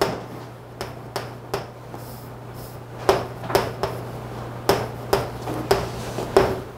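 Chalk knocking and scraping on a chalkboard as words are written by hand: a string of sharp taps, roughly one every half second, over a steady low hum.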